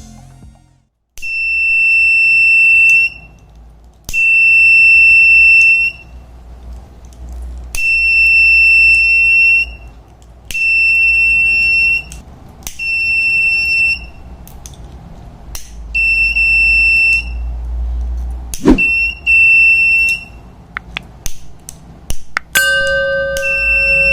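Mini 12 V DC buzzer of a homemade fire-alarm circuit sounding a steady high beep in about eight on-off bursts of one to two seconds each, at uneven intervals, as the alarm is triggered and released. A sharp click comes about 19 seconds in.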